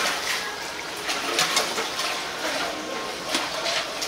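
Water running and splashing, with scattered short clatters.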